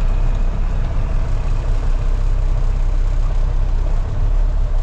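Heavy truck's engine running steadily as it drives, heard from inside the cab.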